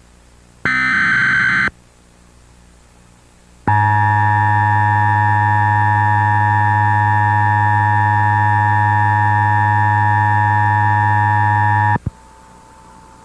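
Emergency Alert System alert opening: a one-second buzzy electronic data burst (the SAME header), then after a pause the EAS two-tone attention signal, a loud, harsh, steady dual tone held for about eight seconds and cutting off suddenly. A faint steady tone remains near the end.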